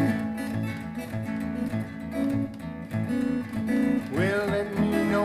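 Music with a strummed acoustic guitar and steady bass notes. About four seconds in, a wavering melodic line with pitch bends comes in over it.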